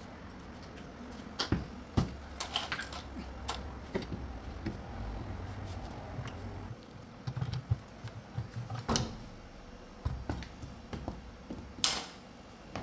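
Scattered metallic clinks and knocks of a socket wrench and parts as the front counterweight of a front-load washing machine is unbolted and lifted off, with two louder knocks near the end.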